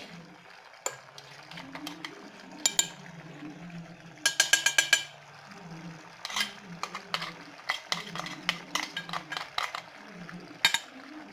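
Metal utensils clinking and scraping in a pan of thickened tamarind paste, with a quick run of metal taps a little after four seconds in as the ground roasted-spice powder goes into the pan.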